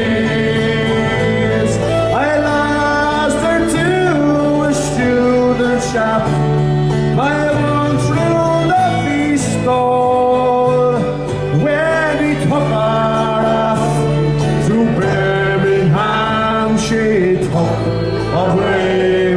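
Fiddle playing a sliding folk melody over strummed acoustic guitar chords: the instrumental opening of the song, before the vocals come in.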